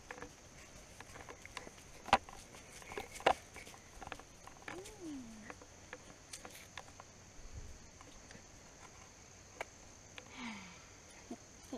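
Light footsteps on a dirt woodland path, scattered soft steps and crunches, over a steady high insect drone. Two brief falling sounds come about five seconds in and near the end.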